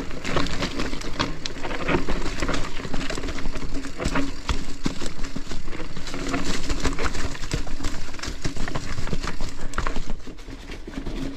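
Mountain bike ridden over a leaf-covered, rooty trail: tyres crunching through leaves, with a constant clatter of clicks and rattles from the bike on rough ground. It eases off a little near the end.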